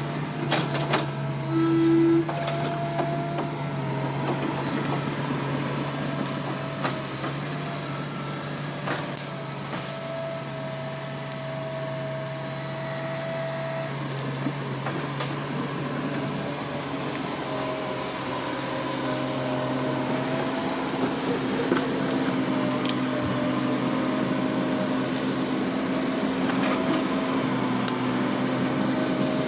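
Diesel engine of heavy earthmoving machinery running steadily under work, with occasional clanks and a brief louder sound about two seconds in.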